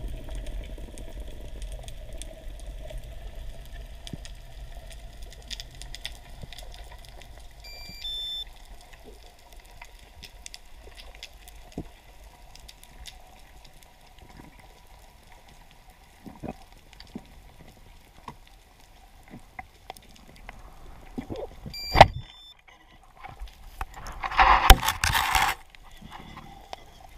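Underwater ambience heard through a diving camera's housing: a steady low rumble with scattered faint clicks and crackles. Short high beeps come twice, about a third of the way in and again near the end. With the second, a single sharp crack stands out as the loudest sound, and a loud rush of hissing noise follows a couple of seconds later.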